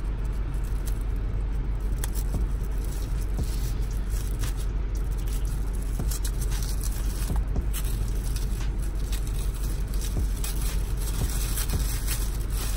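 A plastic packaging pouch being unwrapped by hand, its tape picked and peeled off, giving an irregular run of scrapes and crinkling crackles over a steady low rumble in the car's cabin.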